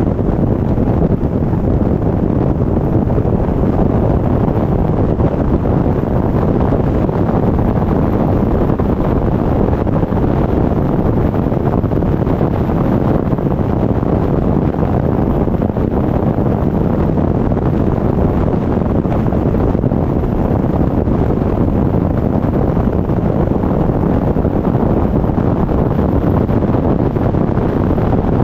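Steady wind rushing over a microphone mounted outside on a car's roof at highway speed, a low, even rumble of wind buffeting mixed with road noise.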